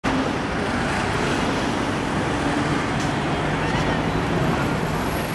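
Steady city-street traffic noise: cars and other vehicles driving past at low speed.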